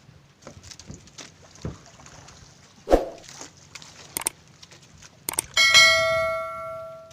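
A few light knocks and clicks, a sharp thump about three seconds in, then a metal object is struck and rings out with a clear bell-like tone that fades over about a second and a half.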